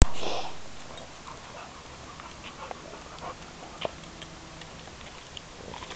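Dogs playing on a concrete path: a short louder dog sound at the very start, then light scattered ticks and scuffs of claws and paws on the concrete, with one sharper click about four seconds in.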